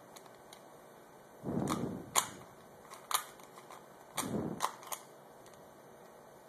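Plastic Rubik's Cube layers being twisted by hand, clicking and clacking in three short bursts of turns with the dull rattle of the cube being handled.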